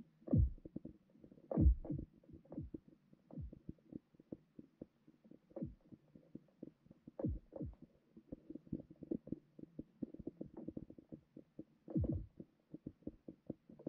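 Underwater sound under lake ice heard through the camera's microphone: a steady crackle of small irregular clicks and knocks, with four louder low thuds that drop in pitch.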